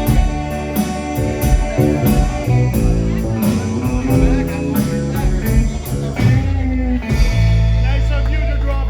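Live band playing the instrumental ending of a song: guitar over bass and drums with a steady beat, closing about seven seconds in on a long held final chord.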